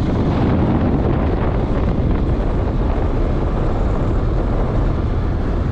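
Strong wind buffeting the microphone: a loud, steady, low rumble.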